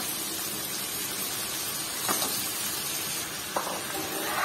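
Shrimp masala sizzling steadily in a hot frying pan as raw pumpkin pieces are dropped in, with a few sharp knocks of pieces landing about two seconds in, three and a half seconds in and near the end.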